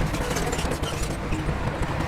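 Bulldozer diesel engine running under load, with steady rattling and clanking.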